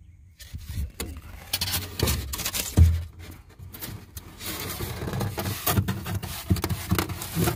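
Rigid foam board being cut and worked into a jon boat's bench hatch: irregular scraping, rubbing and knocking, with a dull thump about three seconds in.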